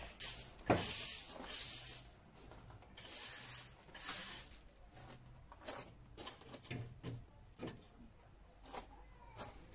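Footsteps crunching on a gravel path with rustling, in two longer rushes in the first half, followed by scattered light clicks and knocks.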